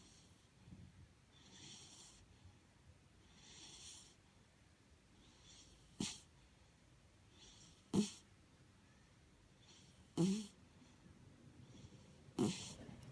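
A sleeping dog snoring: soft breathy hisses about every two seconds, then four short, louder snores about two seconds apart in the second half.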